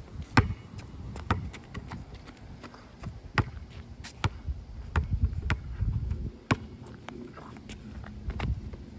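A basketball bouncing on an asphalt court as it is dribbled, sharp bounces at an uneven pace of roughly one a second, with sneakers scuffing and stepping on the asphalt between them.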